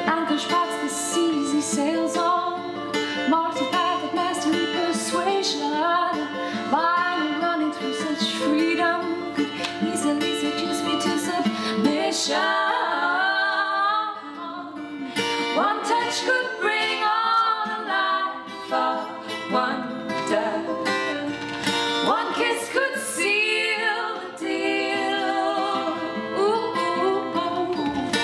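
A song: female singing over acoustic guitar.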